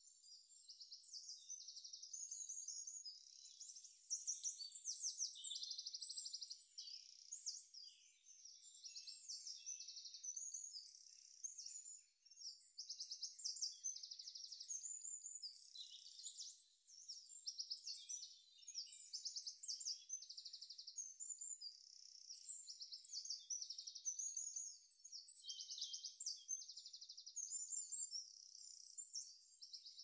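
A dense chorus of small birds chirping and trilling, with many overlapping rapid high calls going on without a break.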